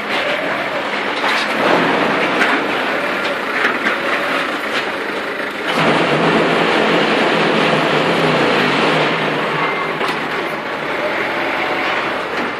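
Heavy machinery running with a steady, dense mechanical noise; about six seconds in, a steady low motor hum joins.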